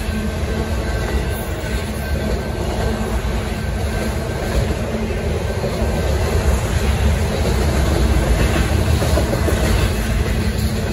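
Autorack freight cars rolling past, their steel wheels clattering steadily over the rails with a continuous low rumble.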